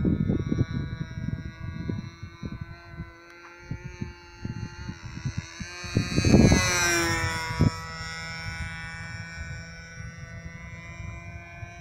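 Radio-controlled aerobatic model airplane's motor and propeller running at a steady high pitch. It grows loudest as the plane passes close, about six seconds in, and its pitch falls as it moves away. Wind buffets the microphone in the first two seconds.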